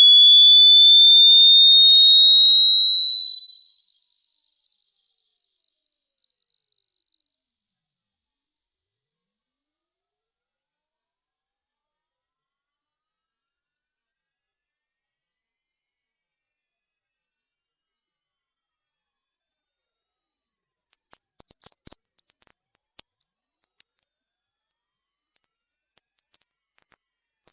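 Hearing-test sweep: a single pure tone gliding slowly and steadily upward in pitch, from a high whistle to a very high, thin tone near the top of hearing. In the last third its loudness starts to flicker.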